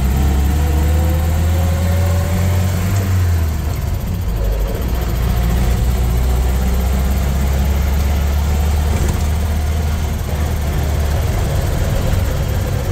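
Land Rover Series II on the move, heard inside the cab: the engine and drivetrain give a steady low drone. A faint whine rises in pitch over the first few seconds.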